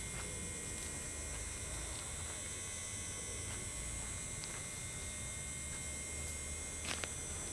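Steady electrical hum with a high, constant whine, unchanging throughout, with two short sharp clicks about seven seconds in.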